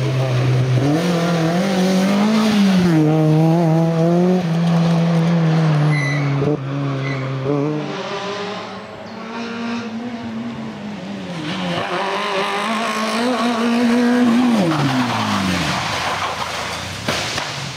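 Rally cars at full throttle on a tarmac stage: a Peugeot 206 rally car's engine revs hard through a corner, its pitch rising and falling with throttle and gear changes for about eight seconds. After a short lull a second rally car's engine comes through, and its note drops away sharply near the end as it lifts off.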